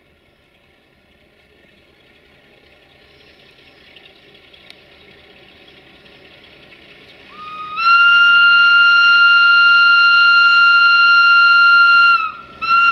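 The whistle of an LDE2100 (060-DA) diesel-electric locomotive blowing one long blast of about four seconds, a single steady high tone that slides up slightly as it opens, then a short second blast near the end. Before it, the rumble of the approaching freight train grows steadily louder.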